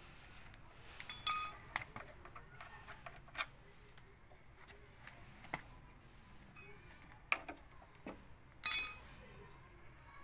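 Metal hand tools clinking and tapping on a motorcycle's front brake caliper during removal of the brake pads. Scattered small clicks are heard, with two louder ringing metal clinks, one about a second in and one near the end.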